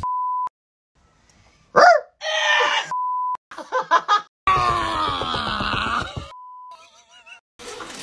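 Three short, identical censor bleeps, each about half a second, with startled human yells and shouts between them: a quick rising-and-falling yelp, then shouting, then a long falling cry.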